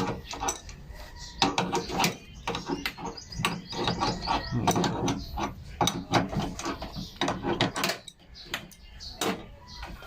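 Irregular clicks and knocks of work handling, coming many times and unevenly spaced.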